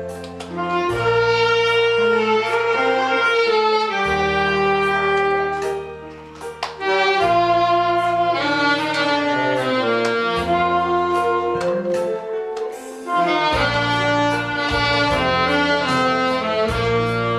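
Saxophone playing a melody of long held notes over a backing track with a bass line and a steady beat, with a brief pause between phrases about six seconds in.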